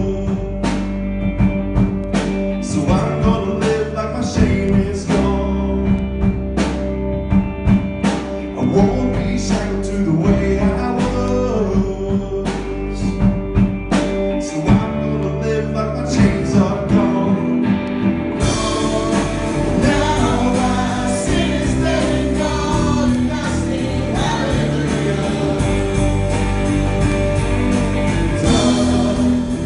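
Christian worship song: singing over instrumental band accompaniment, with the sound growing fuller and brighter about two-thirds of the way through.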